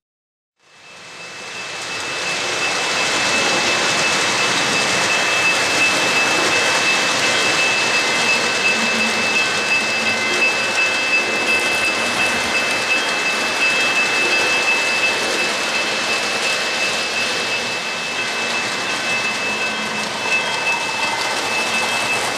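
O-gauge model trains rolling on three-rail steel track: a steady rushing of wheels on rail with a thin, steady high whine. It fades in over the first couple of seconds after a brief silence.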